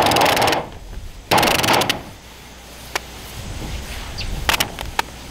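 Roll of adhesive tape being pulled out in two long strips, each giving a loud rapid crackle as it peels off the roll, followed by a few light clicks and knocks.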